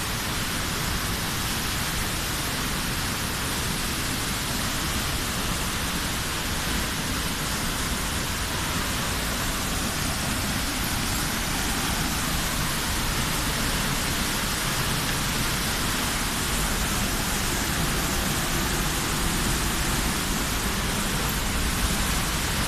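A waterfall's steady, unbroken rush of falling water, with a deep rumble under a hiss.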